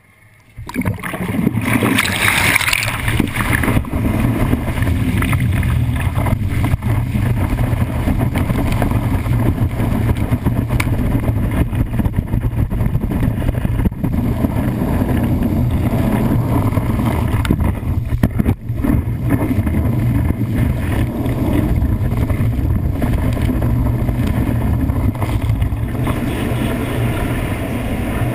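Water rushing and spraying past a GoPro mounted on a wakeboard as the rider is pulled up and rides behind the boat, over a steady low hum from the tow boat's engine. The rush starts suddenly about half a second in, with a burst of spray around two seconds.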